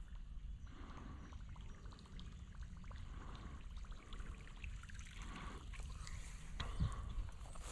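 Faint trickle of creek water, with a soft low thump near the end.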